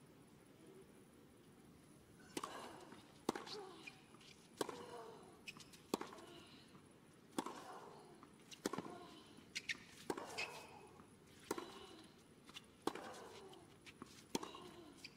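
Tennis rally on a hard court, starting about two seconds in: sharp racket strikes on the ball roughly every one and a half seconds, with ball bounces between them and a short grunt from a player after many of the shots.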